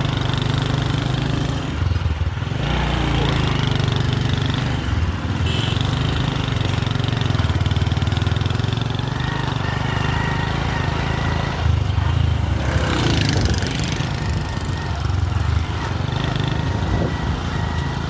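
A small engine running steadily, with faint voices underneath.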